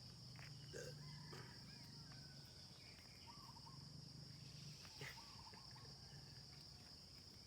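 Quiet rural ambience: a steady high-pitched insect drone with faint, scattered bird calls.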